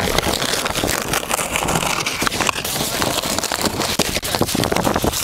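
Wind buffeting the microphone, with dense crackling and rustling noise.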